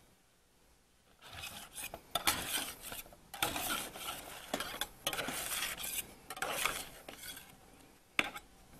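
Metal utensil scraping and stirring against cookware in repeated strokes, with light clinks, starting about a second in.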